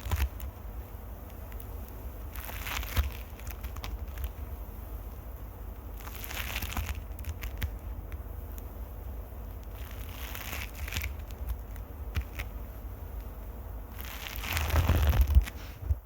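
Fingers scratching and rubbing on a microphone, giving close, crackly, crunching scratches with a low rumble. The sound comes in about five bursts a few seconds apart, and the last one near the end is the loudest.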